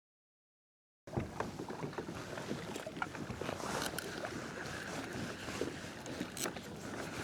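A fishing kayak on the open ocean: water splashing and lapping against the plastic hull with many small knocks and clicks. It starts abruptly about a second in.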